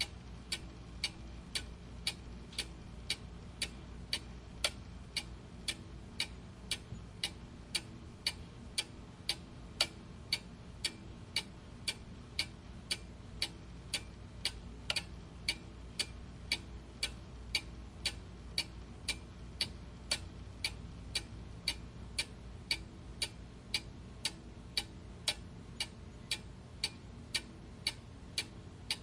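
Clock ticking steadily, about two ticks a second, over a low steady background hum.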